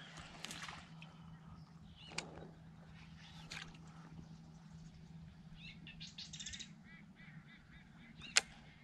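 Birds calling, a scatter of short high calls with a quick run of repeated notes about six seconds in, over a faint steady low hum. A sharp click about two seconds in and a louder one near the end.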